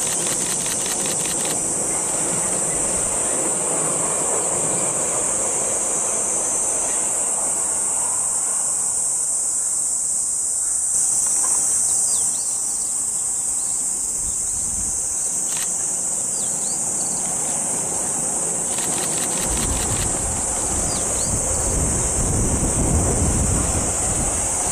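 Cicadas droning steadily, a high even buzz that is the loudest sound throughout. In the last few seconds a low rumble builds as an electric commuter train crosses the viaduct.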